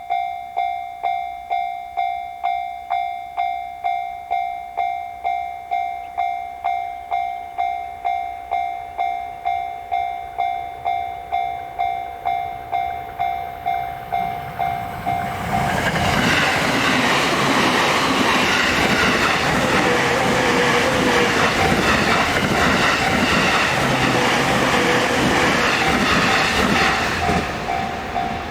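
Japanese level-crossing alarm ringing its electronic "kan-kan" bell in a steady rhythm of just under two strikes a second. About halfway through, a JR Sobu Line electric train passes, its wheels clattering over the rails and drowning the bell for about twelve seconds, and the bell is heard again near the end.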